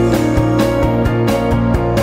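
Background music with a steady beat, about two strikes a second.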